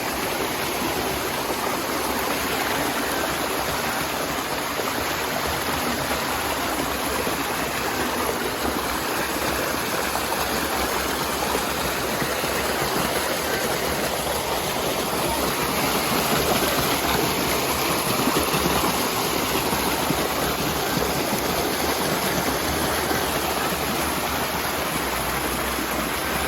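Steady rush of creek water spilling over small falls.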